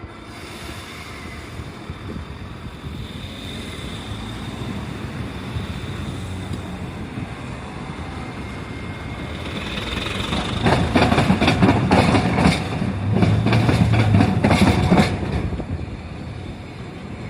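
Railway wheels crossing the Iyo Railway diamond crossing, where the train line cuts across the tram tracks. A rumble of the approaching train builds, then about ten seconds in comes a quick run of loud clacks in two clusters as the wheel sets pass over the crossing gaps, ending about five seconds later.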